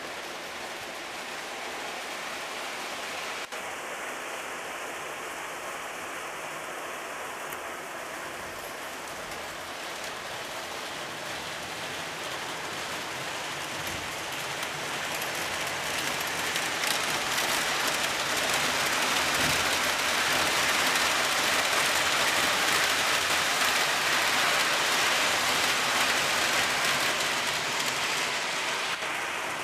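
O scale model train running on shelf-mounted track: a steady rushing rumble of wheels on rail that grows louder past the middle and eases off near the end.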